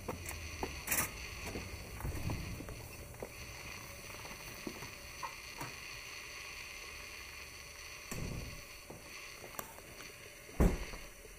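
Handling noise from a handheld camera carried through a front doorway into a room: scattered clicks, knocks and footfalls over a faint steady hum, with a louder low thump near the end.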